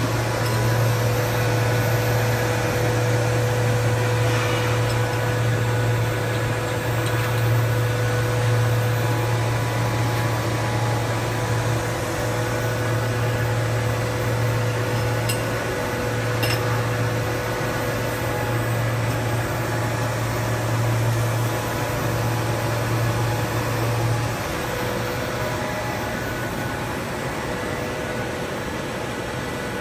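PE blown film extrusion machine running: a steady mechanical drone with a strong low hum and a steady whine above it. The low hum stops about 24 seconds in, leaving a slightly quieter drone.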